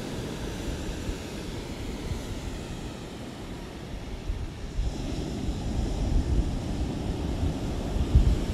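Ocean waves washing on the shore, a steady surf rush that swells louder through the second half as a wave builds.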